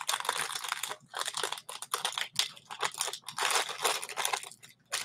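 Crinkly packaging being handled, an irregular crackling rustle.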